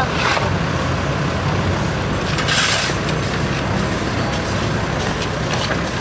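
Backhoe loader's diesel engine idling steadily close by, with a brief scrape of rubble and a shovel about two and a half seconds in.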